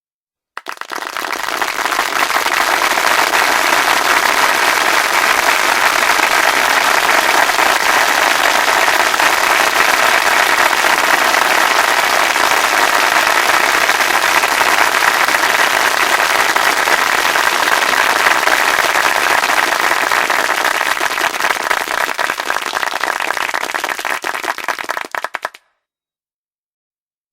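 Applause: dense, steady clapping that starts abruptly about half a second in and cuts off suddenly near the end.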